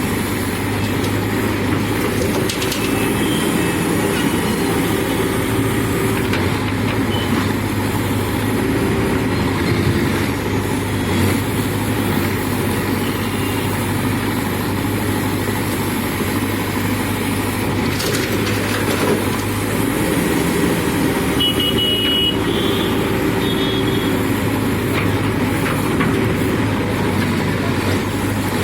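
Diesel engine of a JCB backhoe loader running steadily under work, a constant low hum with no marked revving. A few brief high tones sound about three-quarters of the way through.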